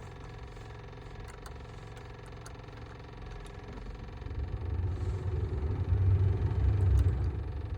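Low droning rumble from under the passenger seat of an idling VW Golf Mk6. It swells about halfway through and is loudest near the end, over a steady low hum. It is the bad noise that appears only in park and only in cold weather.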